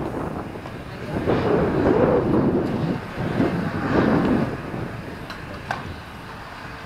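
Wind buffeting the camera's microphone, a rumbling noise that swells and fades in gusts. Two short sharp knocks come a little after five seconds in.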